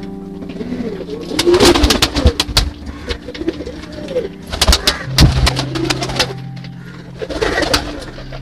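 Domestic pigeons cooing again and again, with bursts of wing flapping and scuffling about a second and a half in, around five seconds in, and again near the end.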